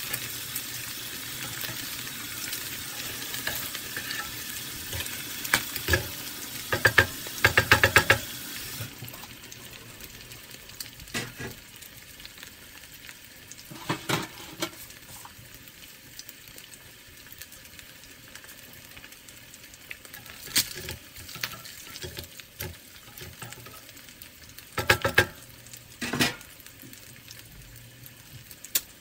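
Fried eggs sizzling in oil in a nonstick frying pan, with a steady hiss that drops away suddenly about nine seconds in and carries on fainter. A spatula scrapes and knocks against the pan several times, loudest in a cluster around seven to eight seconds in and again near twenty-five seconds.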